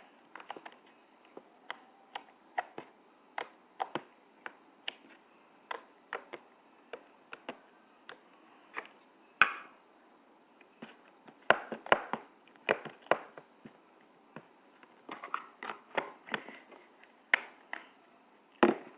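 Slime being squeezed and stretched by hand, giving irregular sharp clicks and pops, sometimes several in quick succession, with quiet gaps between.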